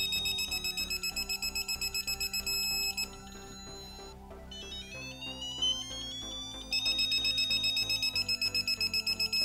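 Digital torque wrench's buzzer beeping rapidly, the pitch climbing as torque builds and then holding a steady beep when the set torque is reached. It stops about three seconds in, and a second rising run starts about five seconds in and settles into the steady beep again.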